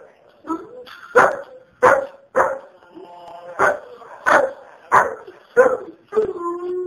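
Rottweiler barking in a quick run of about nine short barks, roughly one every two-thirds of a second, then drawing out into a long steady howling note near the end.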